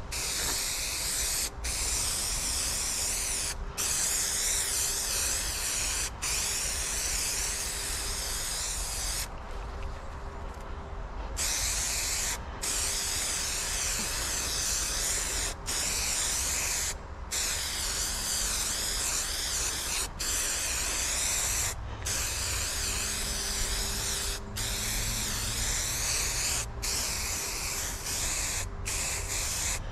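Aerosol spray adhesive hissing from a can in a run of long sprays, each a second or two, with short breaks between them and one longer pause of about two seconds partway through.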